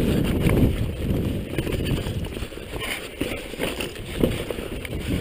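Downhill mountain bike descending a dirt singletrack at speed: rumble of tyres on the trail with rattles and clatter from the bike, heard from a camera on the rider with low wind noise on the microphone. It is loudest in the first second and eases a little after.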